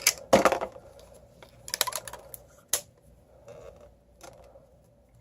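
Hard plastic action-figure pieces and packaging being handled, giving a series of sharp clicks and light clatters. The loudest comes about half a second in, and a few soft ticks follow.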